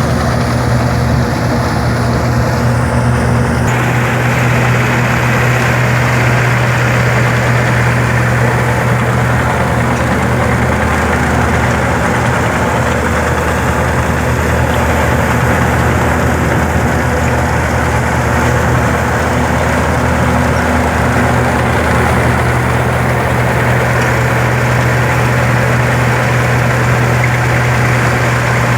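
Massey Ferguson 385 tractor's diesel engine running steadily under load, driving a wheat straw chopper blower, with a constant rushing noise from the machine over the engine's low hum. The sound brightens slightly about four seconds in.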